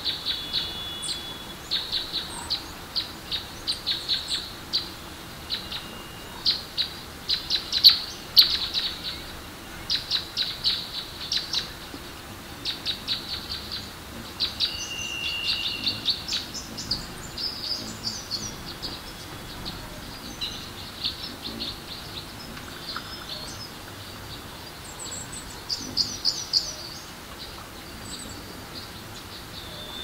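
Small songbirds chirping in quick repeated series of short high notes over the steady rush of a flowing stream.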